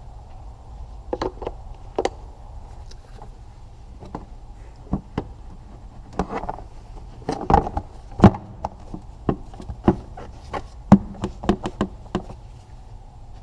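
Plastic engine cover of a Mitsubishi Outlander DI-D diesel being set over the engine and pressed down onto its mounts: a series of irregular plastic knocks and taps, busiest in the second half.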